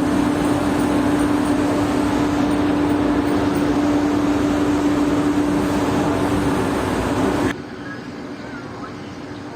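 Loud steady rushing noise over a constant low hum, cutting off abruptly about seven and a half seconds in.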